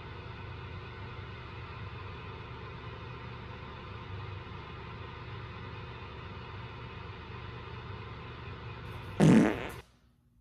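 A steady low hum with hiss, then about nine seconds in a short, loud burst of noise that cuts it off.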